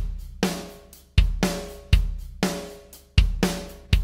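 Drum-kit loop played back through a software compressor plugin: a steady beat of kick drum alternating with a ringing snare, the snare hitting about once a second, with cymbal wash after each hit.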